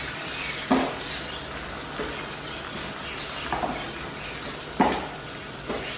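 Chicken pieces sizzling in sauce in a nonstick wok while a spatula stirs them, with about five knocks and scrapes of the spatula against the pan.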